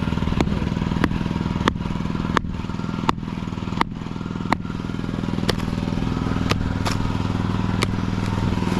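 A small engine running steadily, with a sharp knock about every two-thirds of a second, the knocks spacing out after about five seconds in.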